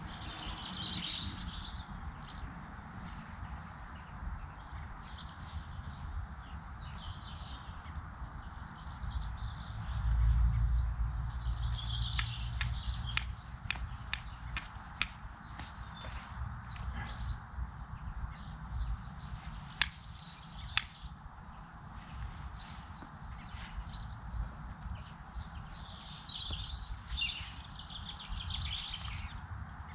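Garden birds chirping and singing throughout. About halfway through comes a run of sharp clicks, with two more a second apart soon after: a flint being struck against a fire steel. A brief low rumble just before the clicks.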